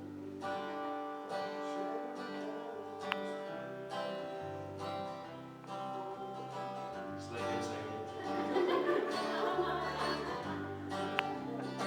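Instrumental gospel music: a guitar playing chords with a moving bass line.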